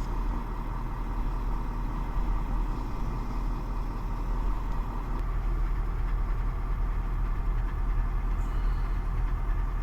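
A heavy vehicle's engine running steadily, a continuous low drone without change in speed.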